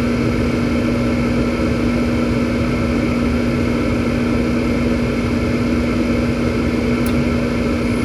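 Bryant gas furnace running in its start-up sequence, its newly replaced inducer motor spinning: a steady hum with one strong steady tone over a low rumble, while the hot-surface igniter heats up before the gas comes on.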